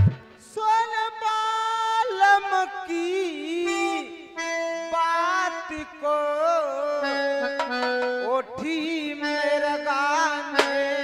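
Harmonium playing a sustained melody without drums, with a wavering, gliding melodic line over the held notes.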